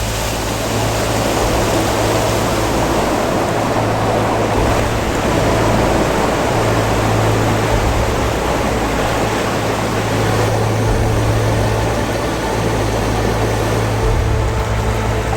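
Mountain creek water rushing close by: a loud, steady wash of water noise, with a low steady hum underneath.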